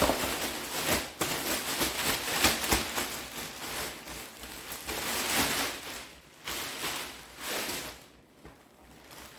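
Packaging rustling and crinkling as packages are handled and shaken out of a larger mailer, dense for about six seconds, then fainter and in short spells.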